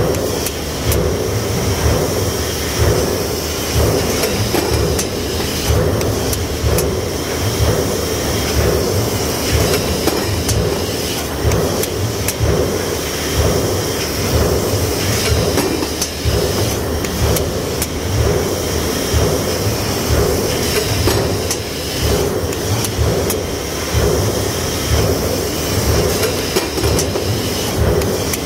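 Stamping press shop noise: a steady machinery hum with frequent, irregular metallic clanks and knocks.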